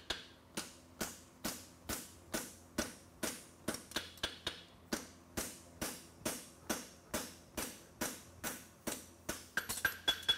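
Farrier's hammer striking a red-hot steel horseshoe on an anvil in a steady rhythm of about two blows a second, each with a short metallic ring, turning up the heel of the shoe.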